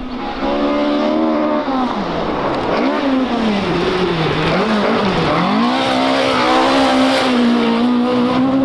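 Mk2 Ford Escort rally car on a loose gravel stage: its engine revs drop about two seconds in and swing up and down for a few seconds as it slows through the bend, then climb about five seconds in and hold high under full throttle. Gravel thrown up by the tyres hisses underneath.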